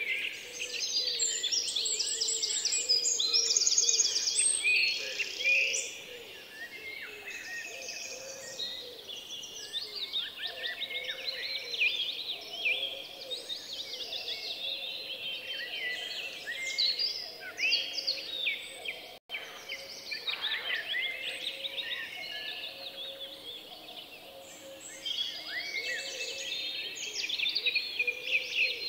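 A dense chorus of small birds chirping and singing without pause, many overlapping short calls and trills. It drops out for a split second about two-thirds of the way through.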